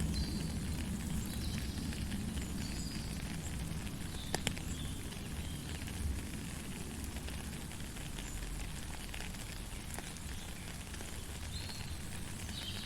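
Heavy rain falling steadily, a dense hiss with a deep low rumble underneath and scattered sharp drop clicks, one louder click a little past four seconds in.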